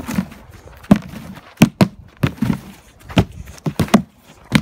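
A series of about nine sharp, irregular thumps and knocks, unevenly spaced and with quieter gaps between them.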